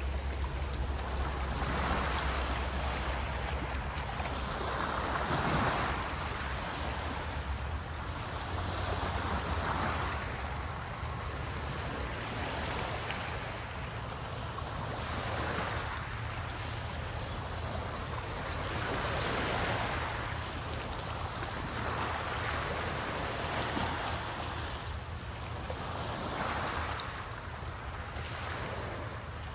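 Small waves breaking on a shore in a steady rhythm, each one a swell of hissing surf about every three to four seconds, over a low steady rumble.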